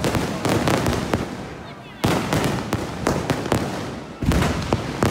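Fireworks going off: three loud booming bursts about two seconds apart, each trailing off into crackling.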